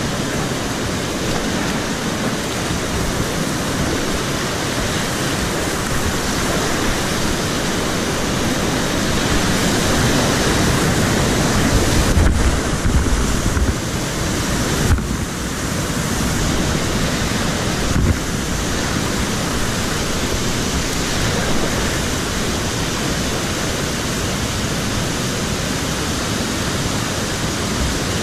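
Loud, steady rush of whitewater rapids heard from a kayak in the middle of them, with spray and wash hitting the microphone. A few dull bumps and brief dips come around the middle.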